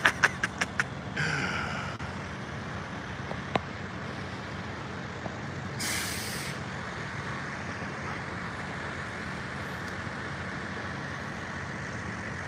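Steady low rumble of idling buses and traffic. About six seconds in comes a short hiss of bus air brakes being released, with a shorter hissy burst about a second in.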